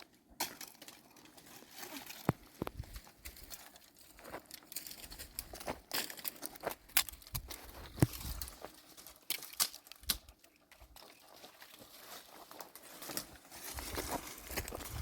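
Dry twigs and leaves crunching and snapping in an irregular run of sharp cracks, the loudest about eight seconds in.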